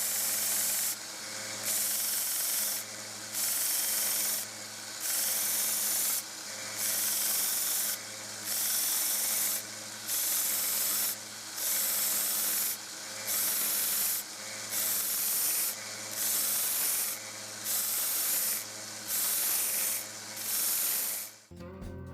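WEN 1x30 belt sander with a 120-grit belt grinding a round steel screwdriver shaft, in about fourteen even passes of a second or so each, over the steady hum of the sander's motor. The grinding stops suddenly near the end.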